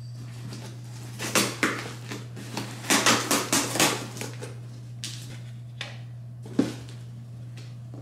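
Cardboard shipping box being opened by hand: packing tape slit and flaps pulled and handled in several short scraping, rustling bursts, with a sharp knock near the end. A steady low hum runs underneath.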